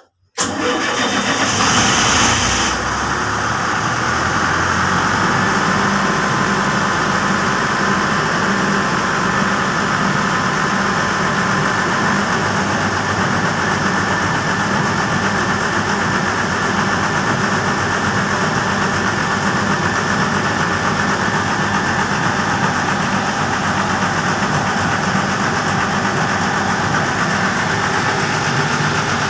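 Generator set's engine starting on its commissioning run: it cuts in suddenly about half a second in, sounds louder and hissier for the first couple of seconds, then settles into steady running at constant speed.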